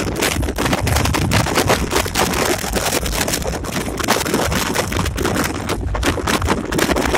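Inside the cab of an EMD SD24 diesel locomotive under way: the low, steady drone of its diesel engine under rapid, irregular rattling and knocking from the cab as it rides over rough track.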